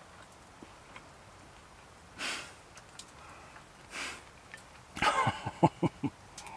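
Two short, sharp sniffs about two seconds apart, then a quick run of about five short, loud pulses near the end.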